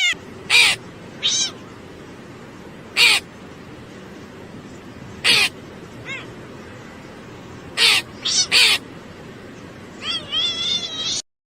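Cat meowing over and over in reply to being asked to 'say meow': about eight short, loud meows spaced a second or more apart, then a run of longer, wavering meows about ten seconds in.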